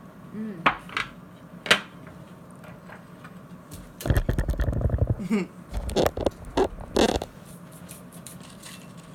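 Crunchy crackers being chewed close to the microphone: a few sharp crunches in the first two seconds, a longer bout of crunching about four seconds in, and more crunches a little later.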